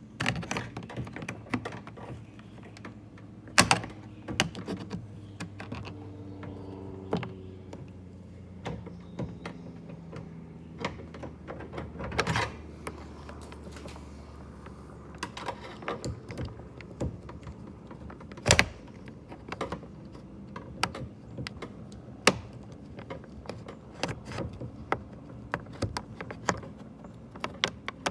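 Flathead screwdriver prying at a small plastic trim panel around a car door handle: irregular clicks, scrapes and knocks, with a few sharper, louder snaps of the plastic.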